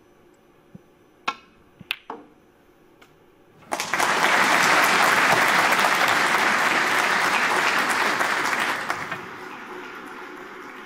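A few sharp clicks of snooker balls striking, then applause starts about four seconds in, holds for about five seconds and fades away.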